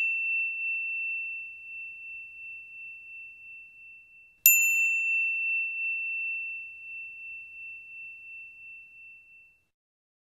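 A high, bell-like ding from a logo sting, ringing out and fading slowly. It is struck again about four and a half seconds in and rings for about five seconds before dying away.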